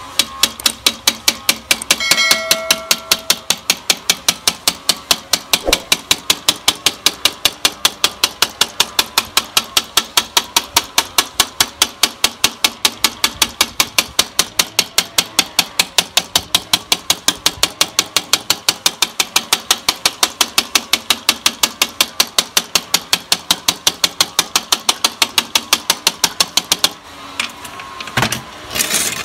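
Rapid, even tapping of a metal glass cutter's ball end against a pane of glass, about four taps a second, stopping shortly before the end. The taps run the crack along a scored circle so the disc can be broken out for a fan hole.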